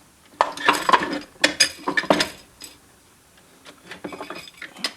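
Steel internal parts of a 700R4 automatic transmission clinking and knocking against each other and the case as they are lifted out: a busy run of ringing clinks in the first half, then a few lighter clicks.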